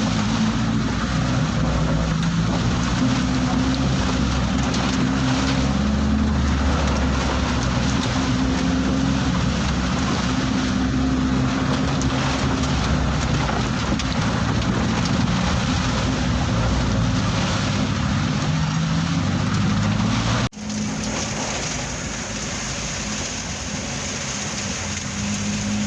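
Heavy rain pouring, with a vehicle's engine running underneath, its pitch shifting up and down. About twenty seconds in the sound breaks off abruptly and comes back a little quieter.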